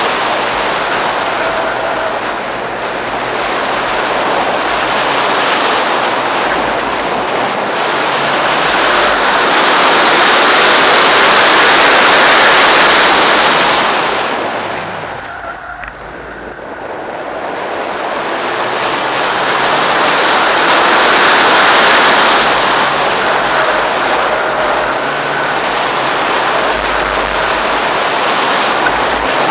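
Loud rush of wind and road noise from a Mazda Miata being driven fast on a track, with little clear engine note over it. The rush dips for a couple of seconds just after halfway, then builds again.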